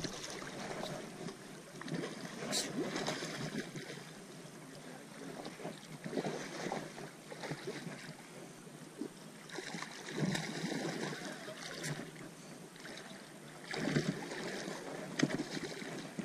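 Shallow water sloshing and splashing around a hooked silver salmon being played on a fly rod, with a few louder splashes as the fish thrashes at the surface.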